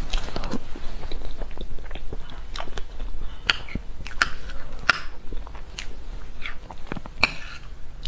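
A person eating soft strawberry-cream cake from a spoon close to the microphone: wet smacking and chewing, broken by a string of sharp clicks.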